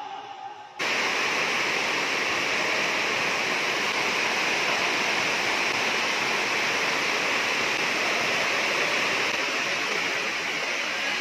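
A steady, even hiss like static, starting about a second in after a brief quieter moment, with no ball bounces, voices or music standing out.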